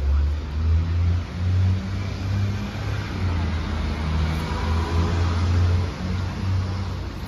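A motor vehicle's engine running close by: a loud, low hum whose pitch steps up and down several times.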